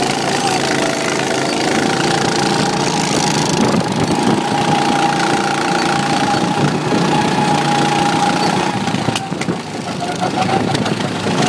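Go-kart engine running steadily under way, its note holding level, then dropping briefly in pitch and level about ten seconds in before picking up again.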